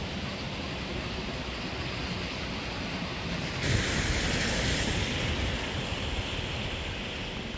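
Flood-swollen urban stream running high and fast: a steady rushing wash of water. It gets louder and brighter a little under four seconds in.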